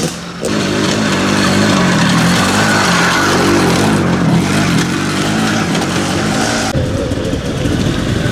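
Off-road motorcycle engine revving up and down as the bike rides past close by. About six and a half seconds in, the sound changes abruptly to another off-road motorcycle approaching, its engine note rising and falling.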